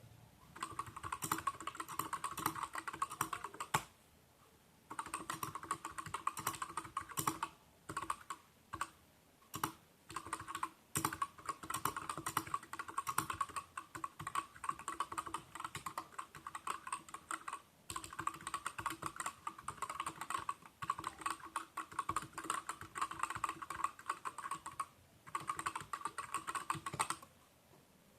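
Typing on a Varmilo VA68M mechanical keyboard with Gateron Clear linear switches and O-rings under PBT keycaps: fast runs of key clatter broken by short pauses and a few single keystrokes, stopping near the end.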